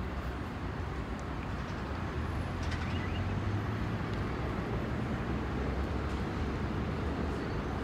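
Steady low rumble of city traffic and urban background noise, with a few faint ticks.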